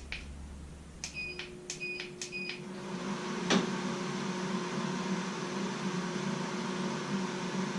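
WEN 3410 three-speed shop air filtration unit beeping three times as it is switched on and stepped up to its highest speed (400 CFM), then its fan running up to a steady hum with a low tone. A single click sounds partway through.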